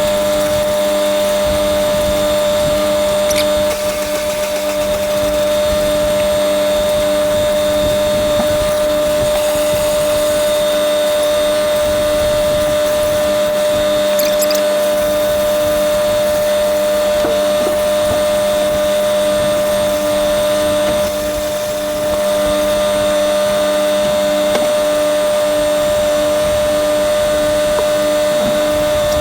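A steady, loud motor hum with a faint pulse about one and a half times a second, from machinery run while the combine's grain tank is cleaned out. It dips briefly twice, about four seconds in and near twenty-one seconds.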